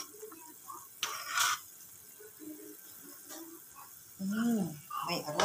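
Metal spoon stirring noodle soup in a metal pot, with a short scraping swish about a second in. A person's voice comes in near the end.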